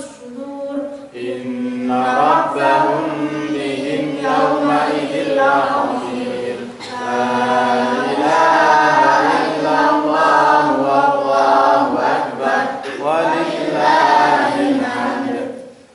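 A boy reciting the Qur'an in a melodic chant into a microphone, with long held, ornamented notes and short breaths about a second in, near the middle, and shortly before the end.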